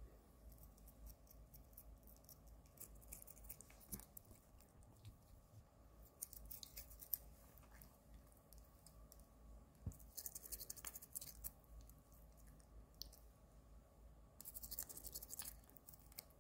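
Toothbrush bristles scrubbing a cat's teeth: faint, scratchy brushing strokes in four short bouts.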